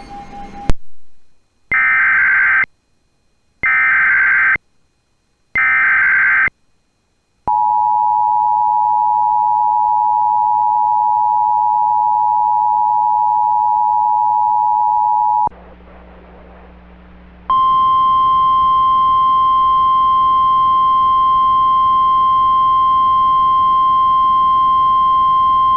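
Emergency Alert System activation for a tornado warning. After a sharp click, three short warbling data bursts (the SAME header) sound about two seconds apart. Then the two-tone EAS attention signal runs for about eight seconds, a low hum follows for a couple of seconds, and a steady single-tone weather-radio warning alarm holds for about nine seconds.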